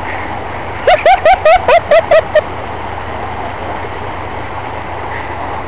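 A loud, quick run of about eight high-pitched 'ha' syllables starting about a second in, like someone laughing hard close by, over a steady low drone of vehicle engines running in the background.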